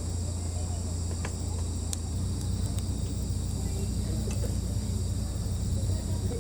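Crickets chirping in a steady high chorus over a low steady hum, with a few sharp crackles now and then.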